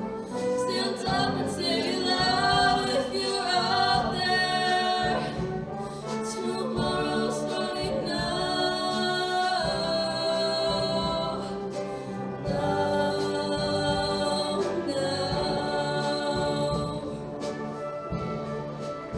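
Show choir singing in full harmony over instrumental backing, with long held chords that change every second or two.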